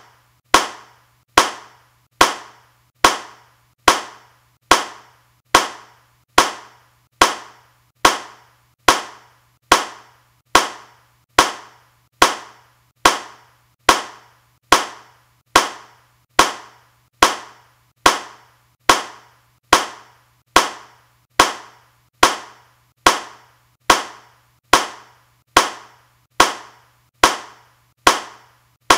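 A single hand clap repeated at an even pace, a little more than one clap a second, each clap sharp with a short decay and all alike.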